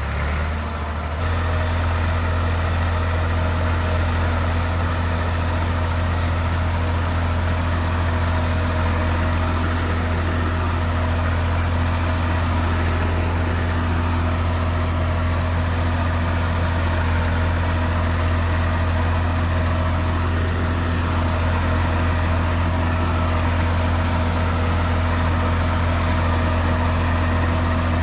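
IMT 542 tractor's diesel engine running steadily at a constant speed, its note stepping up slightly about a second in.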